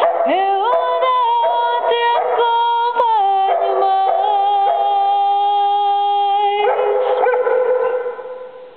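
Golden retriever howling along with Fado music, its long howls gliding up into held notes over the tune. Music and howling stop about eight seconds in.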